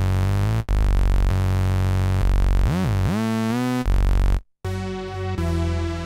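Access Virus TI Snow synthesizer playing sustained chords with a heavy low end, a pitch bend dipping and sweeping back up about three seconds in. After a short cut to silence, a brighter keyboard-like patch comes in playing chords.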